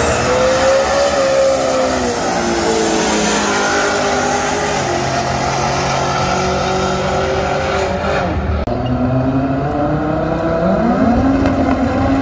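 High-performance car engines at full throttle: the pitch climbs in the first second, eases down through the middle, and climbs again near the end, with a high whine rising over it at the start.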